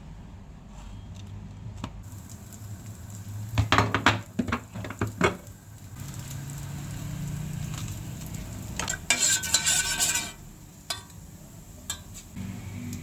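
A utensil clinking and scraping against a pan as food is stirred, with sizzling. There is a cluster of sharp knocks about four to five seconds in and a louder, noisier stretch around nine to ten seconds.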